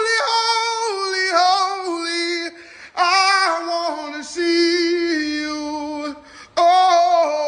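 A single female voice singing a worship song in long held, sliding notes, with no instruments, pausing for breath twice.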